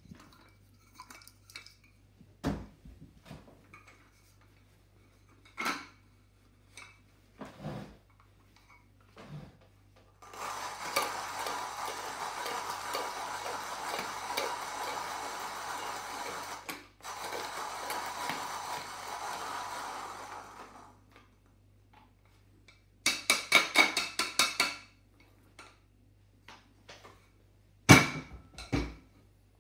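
Orphan Espresso Pharos 2.0 conical-burr hand coffee grinder grinding beans: a steady grinding noise for about ten seconds with one short break. Before it come scattered clicks and knocks, and after it a quick rattle and two sharp knocks near the end.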